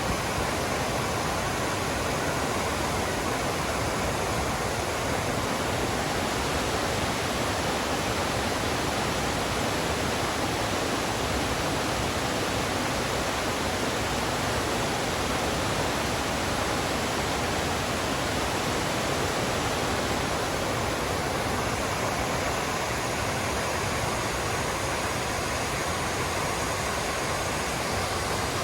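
Waterfall on the River North Esk rushing steadily, a constant even noise of falling water.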